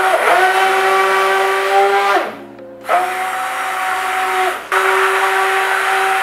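Stick blender running in raw soap batter of hard oils and lye, a steady motor whine. It cuts off briefly about two seconds in and starts again a moment later.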